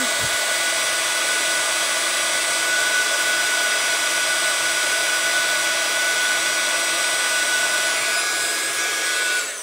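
Craft heat gun blowing steadily, a rush of hot air with a fixed motor whine, heating puff paint so it swells into a snow effect. It is switched off and cuts out near the end.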